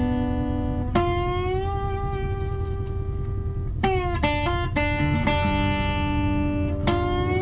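Background music: a guitar playing held chords, with a new chord struck about a second in, again near four seconds and again near seven seconds.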